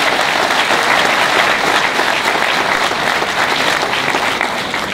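A large audience clapping, a dense, steady patter of many hands.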